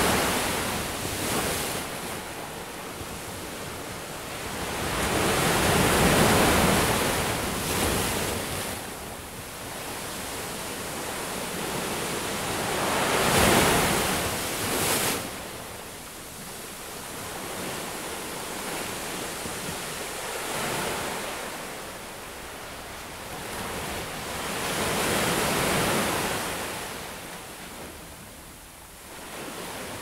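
Ocean waves breaking and washing up a beach: a steady rush of surf that swells into a louder surge every five to seven seconds, then ebbs.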